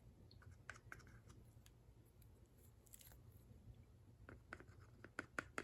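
Faint, scattered small metallic clicks from a pair of handcuffs being handled while their moving parts are oiled, with a quicker run of clicks near the end.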